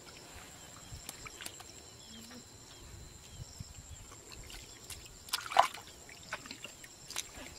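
Hands groping through wet mud and shallow muddy water, with small squelches and light splashes, and one louder splash about five and a half seconds in.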